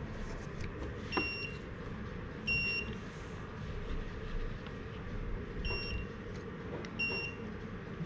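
Electronic buzzer on a home-built Arduino irrigation controller giving four short high beeps, in two pairs about a second and a half apart, over a steady low hum: the controller's status and alert signal.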